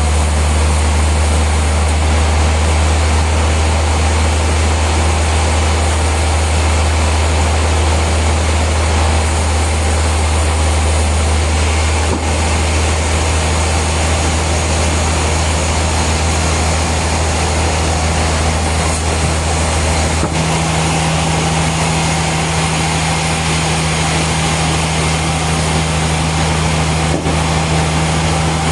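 Heavy industrial machinery running steadily: a loud low drone over a wide mechanical noise, its pitch shifting slightly about twenty seconds in.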